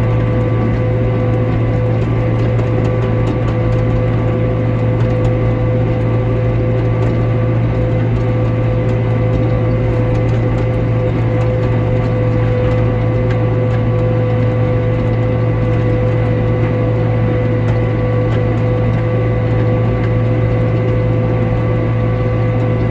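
Tractor and hay mower running steadily while cutting hay, giving a constant loud hum with a steady whine and a gear-like mechanical clatter.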